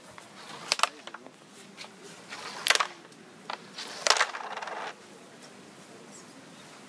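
Wooden sjoelen discs shoved along a wooden sjoelbak (Dutch shuffleboard board), giving several sharp clacks spaced a second or so apart as discs strike each other and the board. One clack about four seconds in is followed by a brief sliding rasp.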